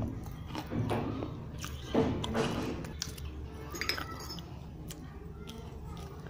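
Pieces of fired clay pot (kulhad) being crunched and chewed in the mouth: a series of sharp, gritty crunches and clinks, irregularly spaced and mostly in the first four seconds.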